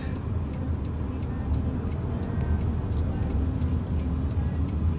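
Steady low vehicle rumble with a light, regular ticking of about three ticks a second.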